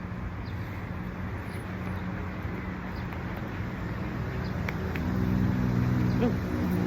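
A motor vehicle's engine running steadily as a low hum, getting louder about five seconds in.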